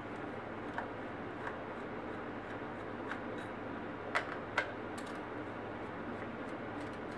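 Light clicks and ticks of a small screwdriver working out the tiny screws that hold a laptop's 1.8-inch hard drive, with two sharper clicks a little past halfway, over a steady faint hiss.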